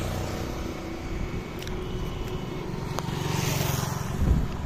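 Road traffic going past on a highway: a steady rumble of engines and tyres, with one vehicle's engine swelling as it passes about three to four seconds in, followed by a short low thump.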